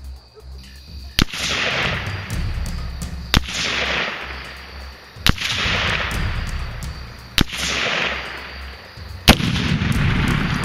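Five rifle shots from a Norinco SKS in 7.62x39, fired about two seconds apart, each crack followed by a long fading echo. Background music runs underneath.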